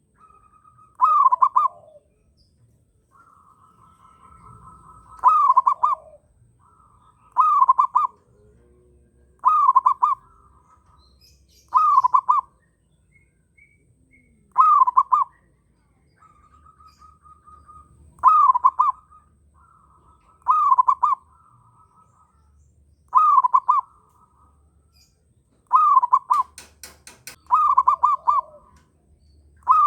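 Zebra dove (perkutut) cooing over and over, a loud call about every two to three seconds with softer trilling between them, the repeated song of a male in strong breeding condition. Other birds chirp faintly in the background, and a brief run of sharp clicks comes near the end.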